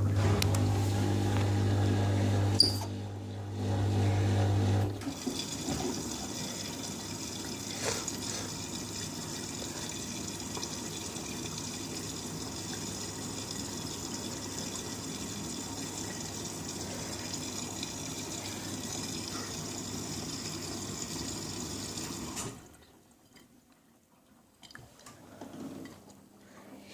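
Miele W3623 front-loading washing machine starting a wash: a loud, steady electric hum for about five seconds, then water rushing in as the machine fills. The water stops abruptly about 22 seconds in.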